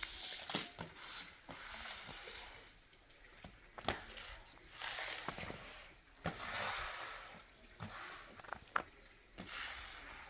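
Scattered light clicks and knocks mixed with a few second-long rustling swishes, as of objects being moved and handled.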